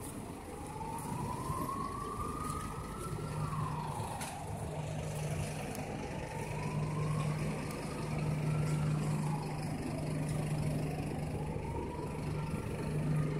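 Emergency vehicle siren wailing, slowly rising and falling about three times, over a steady low hum.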